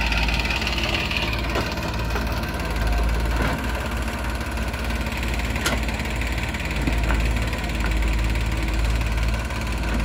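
Diesel engines of a JCB 3DX backhoe loader and an Eicher 480 tractor running steadily, a low hum that swells and eases as the backhoe digs, with a few short sharp knocks.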